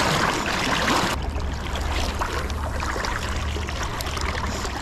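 Steady rush of fast river water with wind rumbling on the microphone. A louder hiss in the first second cuts off suddenly.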